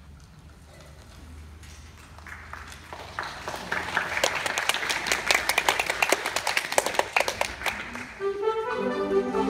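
Concert band: a faint passage swells into a dense, irregular crescendo of rapid percussive taps and clicks. About eight seconds in, the full band comes in with sustained brass and woodwind chords.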